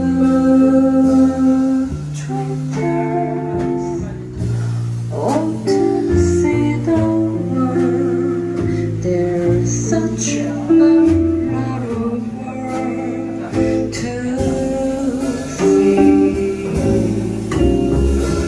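Live acoustic quartet playing: a hollow-body archtop guitar, an upright double bass and a drum kit, with a woman singing into a microphone.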